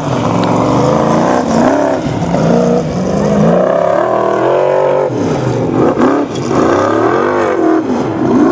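Formula Offroad buggy's engine revving hard under load on a steep sand climb, its pitch sweeping up and down again and again.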